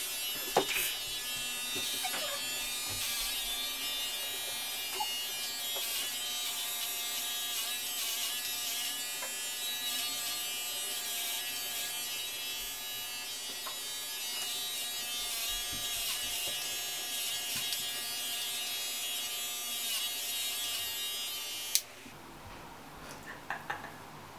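Electric hair clippers buzzing steadily as they cut through long hair, the pitch wavering slightly as the blades work through it. Switched off abruptly about 22 seconds in.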